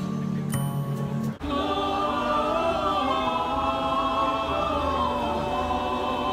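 A mixed choir singing in harmony, holding long notes and moving slowly between them. It comes in about a second and a half in, straight after a short stretch of different, bass-heavy music cuts off.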